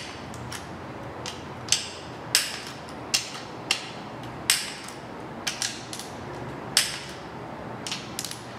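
Torque wrench and socket working the exhaust header bolts to 18 ft-lb: a string of sharp metallic clicks at an uneven pace of about one a second, each ringing briefly.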